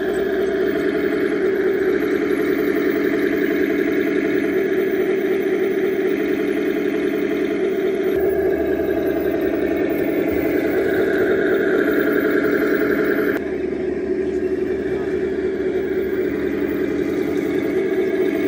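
Simulated engine sound from a radio-controlled model King Tiger tank's sound unit, running steadily as the tank drives. The sound changes abruptly twice.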